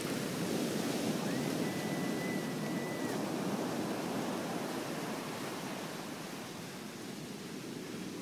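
Ocean surf breaking and washing up a sandy beach: a steady hiss of waves. A faint, steady high tone sounds for about two seconds a little after the start.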